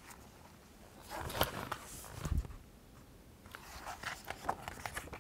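Soft rustles and light clicks of a hardback picture book being held and turned in the hands, with a low thump a little past the middle.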